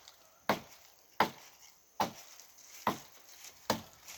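Steady chopping into wood, five sharp blows about one every 0.8 seconds, typical of an axe or machete cutting branches.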